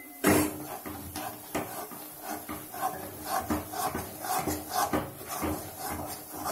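A spoon scraping and stirring thick gram-flour batter in hot oil against a metal kadai, in quick, regular strokes about two to three a second. The besan is being cooked continuously until it stops taking up the oil, the stage before Mysore pak sets.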